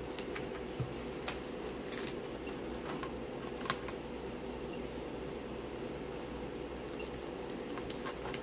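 Faint crinkles and ticks from the clear plastic film being smoothed and pressed down by hand over a diamond painting canvas. A handful of them are scattered over the seconds against a steady room hum.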